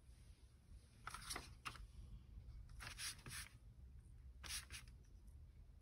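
Faint rustling and scuffing as a paper card is slid across a paper-covered table and a sponge is dabbed in a dish of mineral oil, in three short bursts.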